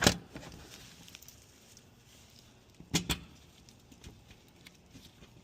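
Sharp knocks of the car's underside cover being slid back into place and fitted: one at the start, then two close together about three seconds in, with light ticks and handling noises between.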